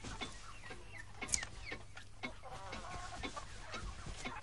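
Faint clucking of chickens, short calls with quick downward slides, with a longer wavering cluck run a little past halfway, over scattered light clicks and cloth rustling.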